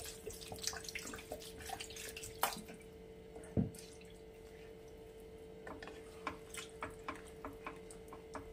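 Wooden spatula stirring vegetables through a thin, freshly watered curry gravy in a pan: light wet splashing and small clicks against the pan. There is one louder knock about three and a half seconds in.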